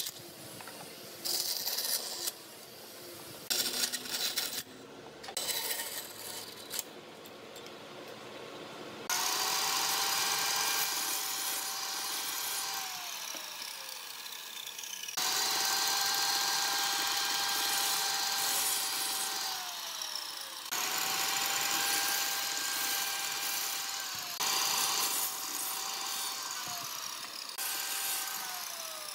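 Bandsaw cutting pine in short, choppy bursts, then a miter saw running through several cuts, its motor whine dropping in pitch as the blade spins down after each cut, about five times.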